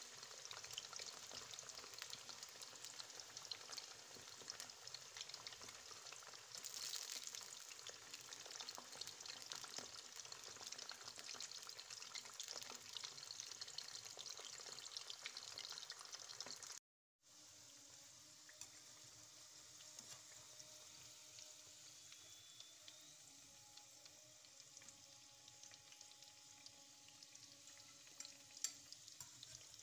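Potato rounds deep-frying in hot oil in a pan: a steady crackling sizzle of many fine pops. The sound drops out for a moment just past halfway, then the sizzle continues more quietly.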